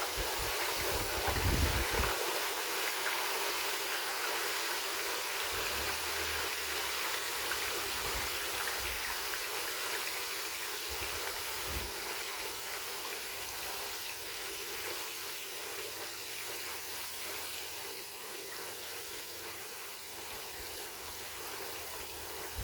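Hot oil in a turkey fryer pot bubbling and sizzling steadily as a whole turkey is slowly lowered into it, easing off a little over the stretch.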